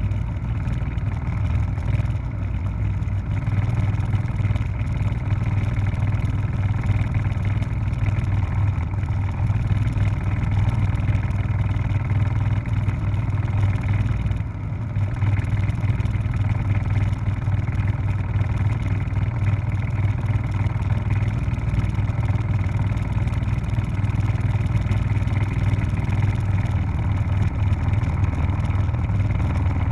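Helicopter in flight: a steady low drone of rotor and engine with rapid, even blade beats, briefly dipping about halfway through.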